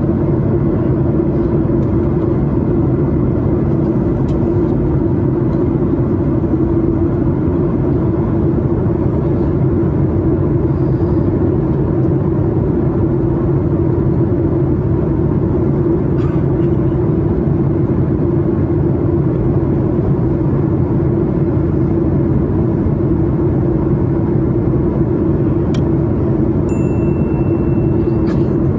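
Steady cabin noise of a Boeing 737 MAX 8 in flight: the constant rumble of its CFM LEAP-1B engines and the airflow over the fuselage. A high steady tone sounds for about two seconds near the end.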